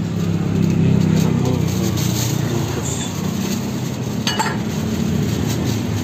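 Plastic bags rustling and dishes clinking, over a steady low rumble of engines, with a sharp clink about four seconds in.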